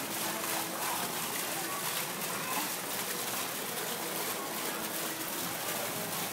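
Steady rush and splash of an artificial waterfall pouring into a fish pond.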